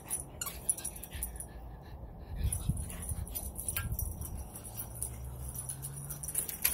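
Dog whimpering while busy with a bone, with scattered sharp clicks and crackles.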